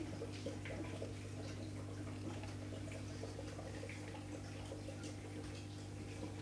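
Aquarium equipment humming steadily, with soft bubbling and dripping of water in the tank.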